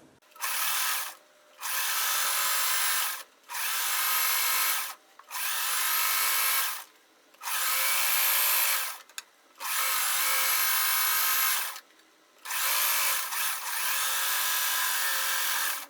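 Electric sewing machine running in about seven short bursts of a second or two each, starting and stopping as the strips are fed through.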